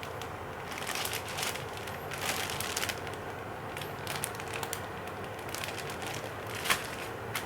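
Crinkling and rustling of plastic packaging being handled, in irregular short spells, with one sharper crinkle near the end.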